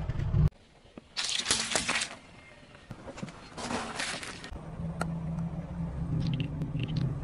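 Car tyre rolling over crushed crackers on asphalt: two short bursts of crunching and crackling, about a second in and again near four seconds in. After that a car's engine running low, with a few small clicks.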